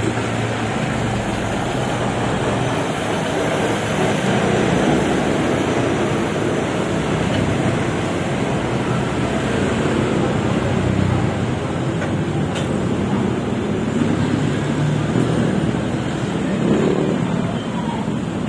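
Steady road traffic noise, engines running without a break.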